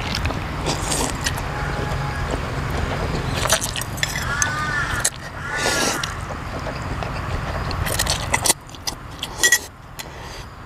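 A person slurping noodles and chewing, with wet sucking squeaks that glide up and down twice near the middle, and small clicks of a fork against a glass bowl. A low rumble runs underneath and drops away about eight and a half seconds in.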